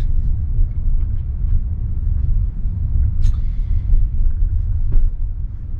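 Low, steady rumble inside the cabin of a 2024 Tesla Model Y, an electric car, as it rolls along: tyre and road noise with no engine note. A brief click sounds about three seconds in.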